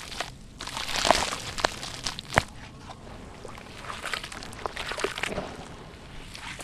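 Hands crumbling dry sand-cement pieces into a plastic basin of water, then squeezing and stirring the wet cement mud. Gritty crunching with sharp cracks, loudest in the first couple of seconds, gives way to quieter sloshing and squelching.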